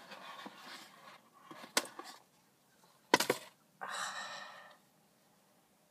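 Hands working at a small gift package: faint rustling, a tap about two seconds in and a sharper crack a little past three seconds, then a short breathy gasp.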